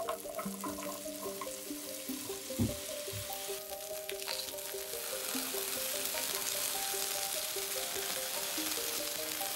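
Diced potatoes frying in butter and olive oil in a nonstick pan: a steady sizzle that grows louder over the first few seconds, with one low knock about two and a half seconds in.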